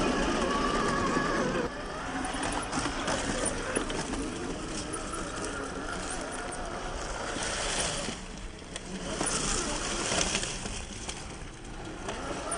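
Electric motor and gear drive of an RC rock crawler whining, the pitch wavering with the throttle. The whine drops away about a second and a half in, leaving a fainter whine with scattered clicks and knocks as the crawler works over the rocks.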